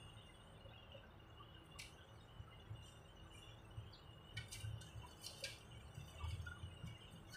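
Faint, scattered clicks and ticks of wires and plug-in connectors being handled and pushed back onto their terminals inside an inverter welding machine, a few of them closer together about four to five and a half seconds in.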